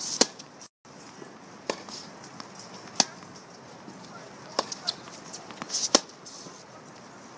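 Tennis ball struck by racquets and bouncing on a hard court during a rally: sharp pops a second or so apart, the loudest from the near player's strokes at the start and about six seconds in.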